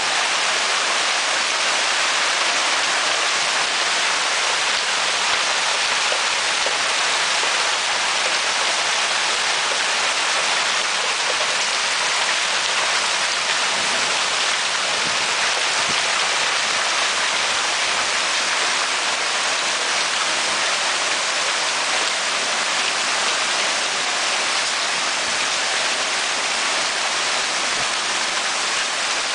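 Hailstorm: a steady, dense hiss of hail coming down, unchanging throughout.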